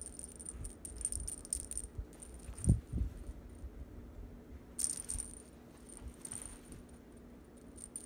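A feathered owl wand toy jingling and rattling in short bursts as a cat bats at it and it is shaken on its string. A single dull thump comes about three seconds in.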